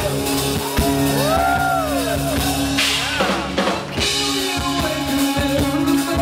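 Live prog-rock band playing: drum kit, bass guitar and keyboards holding long low notes, with high notes that slide up and down and a loud crash about three seconds in.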